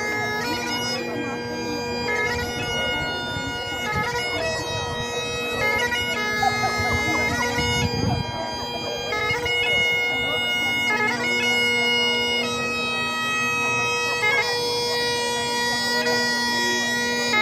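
Great Highland bagpipe played solo in piobaireachd style: steady drones under a slow chanter melody of long held notes, each change of note broken by quick grace notes.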